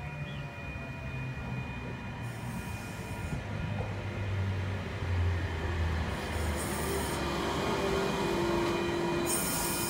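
NSW TrainLink H-set (OSCAR) electric intercity train running into the platform, growing louder as it nears. A low hum builds, a steady whine joins about two-thirds in, and short high-pitched squeals come three times.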